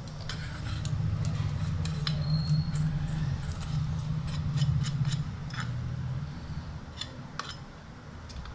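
Metal spoon scraping and clinking against a small steel tempering pan as hot tempering is emptied onto mashed potatoes, in many irregular clicks and scrapes. A low hum runs beneath and fades out about six seconds in.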